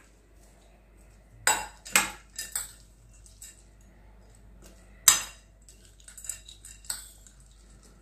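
Metal spoon clinking and scraping against a ceramic bowl while stirring fried peanuts, chopped onion and tomato. Irregular sharp clinks, the loudest about halfway through.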